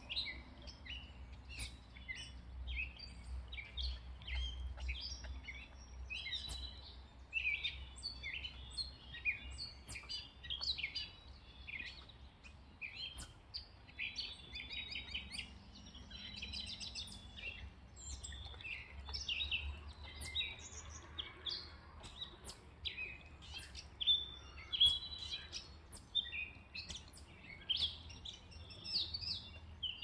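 Chorus of many songbirds chirping and singing at once, short overlapping calls and trills without a break, over a faint low rumble.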